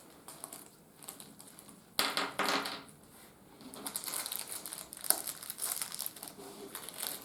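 Packaging being handled and crinkled as parts are taken out of a box: a sharp crumpling burst about two seconds in, then irregular crackly rustling for the last three seconds.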